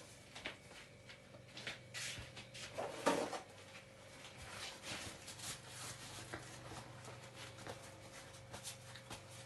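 Kitchen handling sounds: scattered small clicks, taps and rustles of containers and packets being picked up and opened, with one louder rattle about three seconds in, over a steady low hum.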